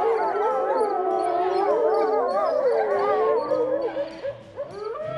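A wolf pack howling in chorus, several wavering howls overlapping one another. The chorus thins out about four seconds in, and a single long, slowly falling howl starts just before the end.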